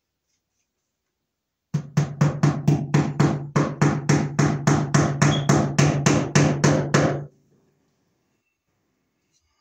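A fast, evenly spaced run of about twenty sharp strikes, nearly four a second, over a steady low hum. It starts about two seconds in and stops abruptly some five seconds later.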